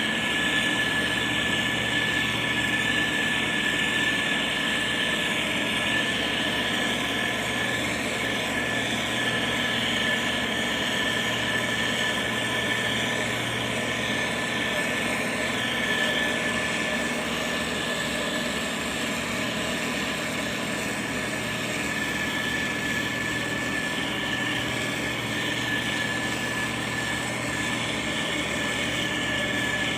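Diesel engine of a heavy road-construction machine running steadily, with a steady high-pitched whine over the engine noise.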